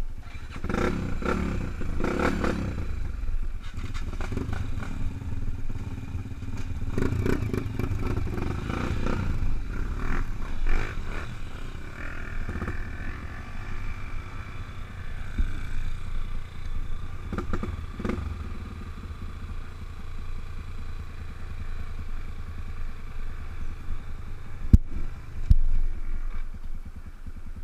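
Off-road motorcycle engine running under load up a trail climb, rising and falling with the throttle, with rattling and knocks from the rough ground and two sharp knocks near the end.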